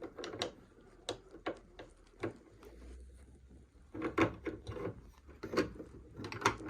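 Irregular clicks and knocks of a sewing machine's thread tension assembly being manoeuvred by hand back into its seat in the machine, with a busier run of knocks past the middle and near the end.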